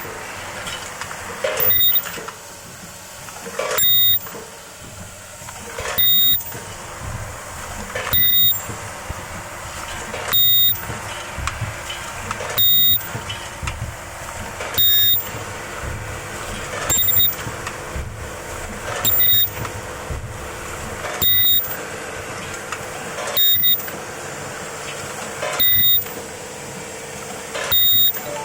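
Automatic ultrasonic welding assembly machine for trigger-sprayer bodies cycling: a loud, shrill half-second weld burst with a high whine about every two seconds, thirteen in all, over the steady clatter of the machine's mechanism.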